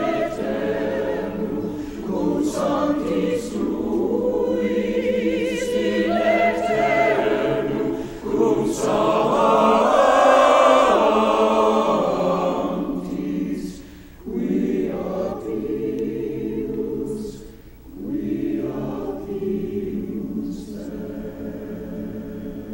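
Church choir singing an anthem in long phrases. It swells to its loudest about ten seconds in, with brief breaks between phrases at about fourteen and eighteen seconds.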